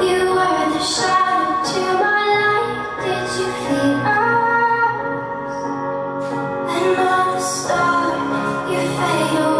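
Background music for a dance routine: a song with a woman singing over sustained keyboard chords.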